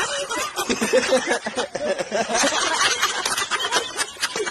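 People laughing in short snatches over a steady, hissy noise.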